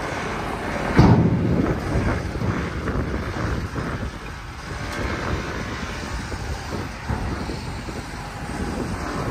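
Diesel dump truck engine running as the truck creeps forward with its bed raised, spreading its load. A loud thump about a second in stands out above the steady engine noise.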